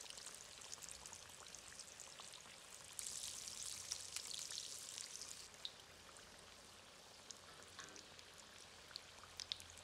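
Taro puffs deep-frying in a wok of hot oil: a faint, steady crackle and sizzle of bubbling oil. It grows louder for a couple of seconds about three seconds in, then settles quieter, with a few sharp pops near the end.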